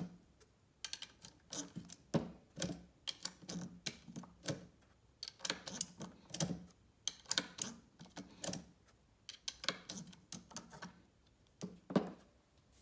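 Plastic syringe-style speedloader pushing .22LR rounds into a ProMag 22-round Remington 597 magazine: repeated sharp clicks in small clusters, roughly one to two a second, the loudest near the end.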